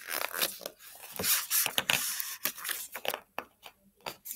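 Paper pages of a thick picture book being turned and flipped by hand: a quick run of papery rustles and swishes, thinning to a few short taps near the end.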